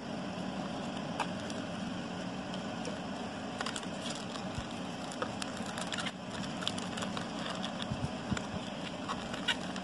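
Light cardboard and paper crinkling, with many small irregular clicks and crackles, as a small printed cardboard box is folded and set up by hand, over a steady background hum.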